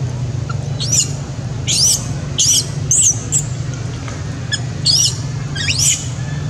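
Baby macaque crying: a run of about eight short, shrill squeals, each rising then falling in pitch, over a steady low hum.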